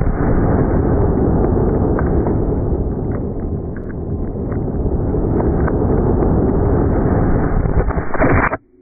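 Slowed-down sound of a slow-motion replay of an air-rifle shot and its impact on a ballistic dummy's head, stretched into a long, low, dense rumble with a few faint clicks in it. It cuts off abruptly near the end.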